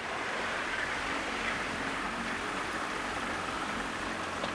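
Steady rushing noise of a small boat under way on a lake, with a faint low motor hum beneath it.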